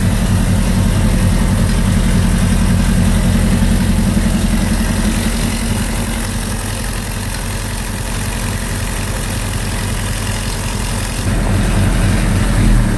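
1937 Austin Seven's four-cylinder side-valve engine, fed by twin carburettors, running at a steady idle on its first run with its electrics and fuel system.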